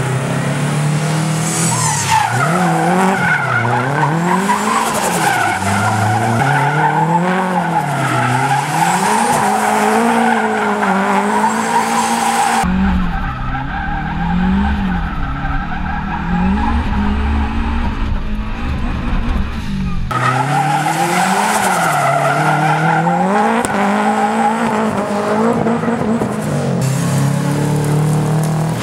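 A 2005 Subaru STi's turbocharged flat-four engine revving up and down in a steady rhythm, about every two seconds, with tyres squealing and skidding as the car slides through drifts and donuts. Through a stretch in the middle it is heard from inside the car: a deeper engine rumble, the tyre squeal muffled.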